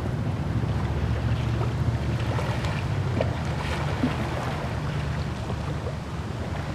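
Wind buffeting the microphone, a steady low rumble, over the wash of river water lapping onto a flooded shoreline walkway.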